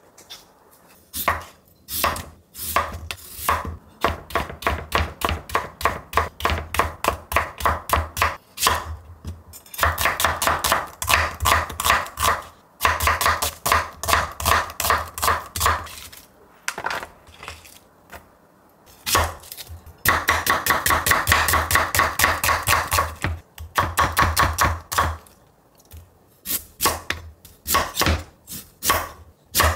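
Chef's knife slicing a raw onion and then a carrot on a wooden cutting board: quick runs of crisp knife strokes, several a second, each ending in a knock on the board, with short pauses between runs.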